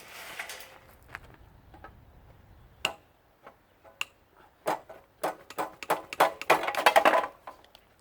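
Metal parts of a central air conditioning unit being worked loose by hand: two sharp ringing clicks, then a quickening run of clanks and rattles about halfway through, loudest near the end.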